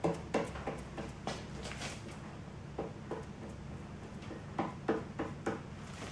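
About a dozen short knocks and clicks at irregular spacing over a steady low hum. They come in two clusters with a lull between.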